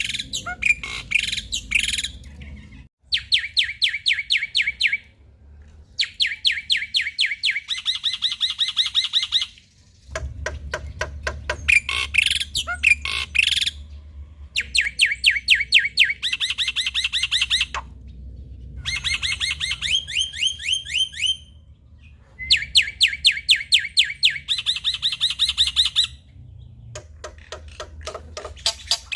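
Male black-winged starling (jalak putih) singing: bursts of one to three seconds of rapid, evenly repeated harsh notes, broken by short pauses.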